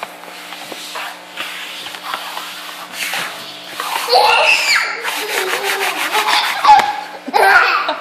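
Rings scraped and tapped on a hardwood floor, a soft rubbing with quick light clicks. From about halfway through, a toddler squeals and laughs in high rising and falling cries.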